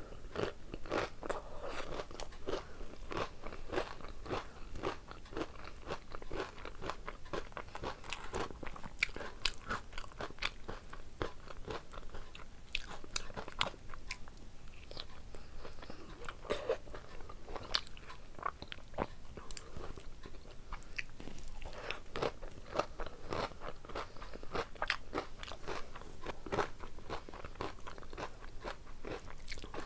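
Close-miked eating by hand: steady chewing with many small crisp crunches and wet mouth sounds, from rice mixed with dal and crisp fried potato strips.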